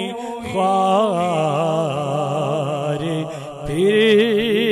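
A man singing an Urdu naat solo, drawing out long wavering notes with melismatic runs between the words. His voice eases briefly about three seconds in, then returns stronger.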